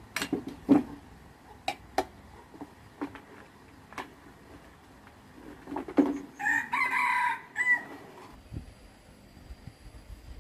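Sharp knocks and clinks of tools and parts on an old chainsaw being taken apart, and a rooster crowing once for about a second and a half just past the middle.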